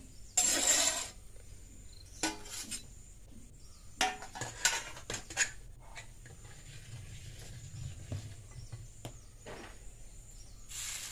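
A flat spatula scrapes across a cast-iron dosa tawa in several short rasping strokes with a few clicks, the loudest about half a second in, as the dosa is lifted off the pan. A steady hiss rises near the end.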